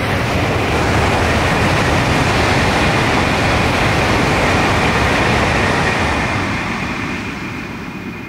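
Tokaido Shinkansen high-speed train passing at speed: a loud rushing noise that swells up at the start, holds steady, and fades away over the last two seconds, with a thin high whine through it.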